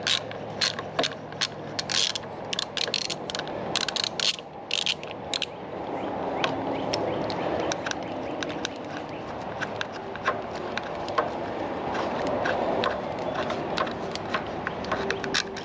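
Socket ratchet clicking in quick, irregular runs as the cylinder head bolts of a Briggs & Stratton 18.5 hp engine are backed out. The clicks are dense and loud for the first five seconds or so, then sparser and fainter.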